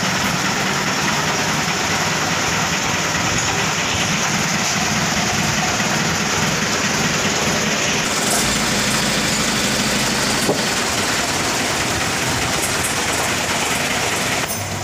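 Mitsubishi Colt Diesel 100 PS direct-injection four-cylinder diesel engine idling steadily and smoothly.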